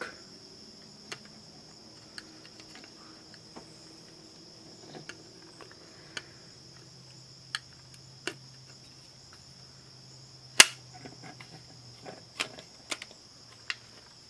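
Scattered small plastic clicks and taps from handling a portable cassette player's door and hinge with a small screwdriver, with one sharp click about ten and a half seconds in and a few more near the end. A steady high-pitched hiss runs underneath.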